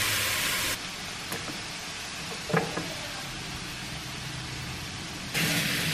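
Kitchen cooking sounds. A frying pan of chicken sizzles with a steady hiss that cuts off abruptly under a second in, a brief clatter comes about two and a half seconds in, and a similar steady hiss starts again near the end.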